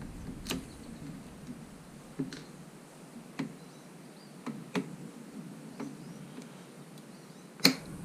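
Scattered light clicks and taps of small plastic and metal parts being handled while a touchscreen panel is taken apart, with one sharper click near the end.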